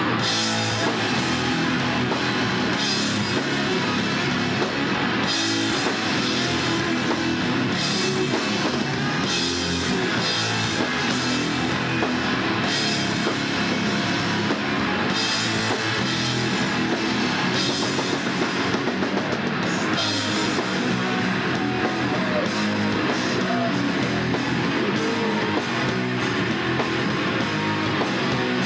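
Rock band playing live: electric guitars and bass over a drum kit, with cymbal crashes recurring throughout.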